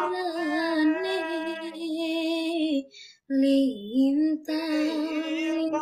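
A woman singing a slow song in long, wavering held notes, breaking off briefly about three seconds in.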